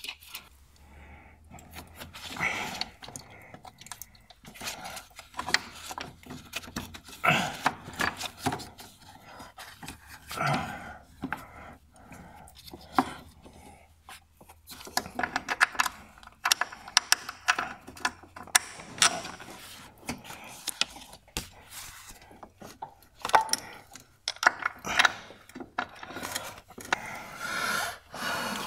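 Irregular clinks, knocks and scrapes of hand tools and metal parts on a car's engine, as the engine mount is being refitted.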